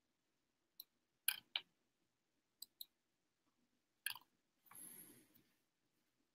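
Near silence broken by about six scattered soft clicks and a brief faint rustle about five seconds in, as from a person working a computer.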